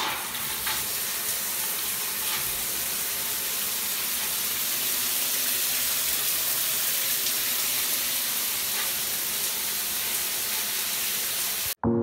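Water from a shower running steadily and falling onto a tiled shower wall and floor, a continuous hiss. It cuts off suddenly near the end, followed by a very short, loud sound.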